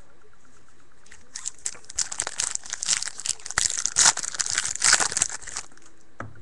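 Foil wrapper of a hockey card pack crinkling and tearing as it is ripped open, a dense crackle lasting about four seconds.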